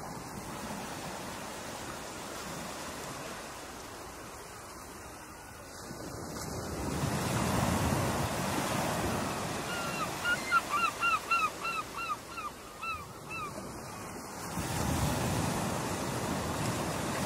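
Ocean surf: waves breaking and washing, swelling louder about seven seconds in and again near the end. Partway through, a bird calls about nine short notes in quick succession, each dropping in pitch.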